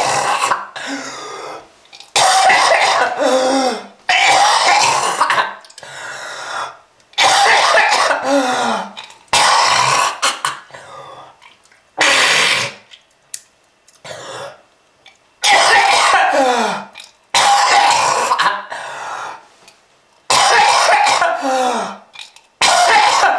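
A person coughing hard in repeated fits, a smoker's cough: about ten harsh, loud bouts, each a second or two long, with short gaps between them. Many bouts end in a falling, voiced groan.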